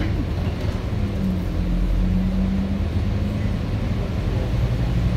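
Scania K230UB single-decker bus's rear-mounted five-cylinder diesel engine running steadily, heard from inside the passenger saloon as a constant low drone under the general running noise of the bus.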